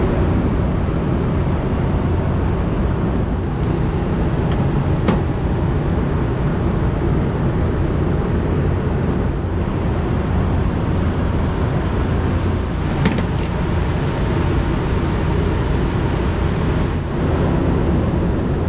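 Steady low drone and rumble of running rooftop HVAC machinery, with two sharp clicks about five seconds and thirteen seconds in.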